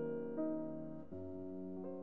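Background music: slow, sustained keyboard chords, with the chord changing about three times.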